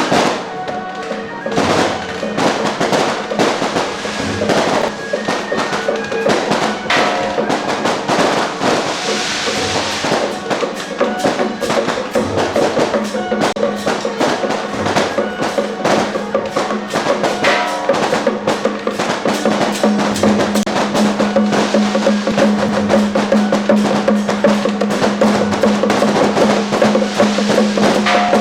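Temple procession percussion music: drums and other percussion struck in a dense, busy beat, with a steady held tone underneath that grows louder near the end.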